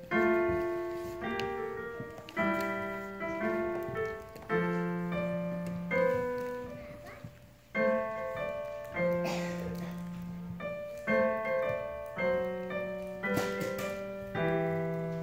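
Piano playing chords without singing, struck about once or twice a second, each chord left to ring and fade.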